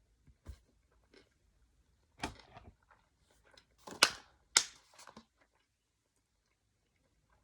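A few sharp clicks and knocks of things being handled. A short clatter comes about two seconds in, then the two loudest clicks about half a second apart near the middle, and a few lighter ones just after.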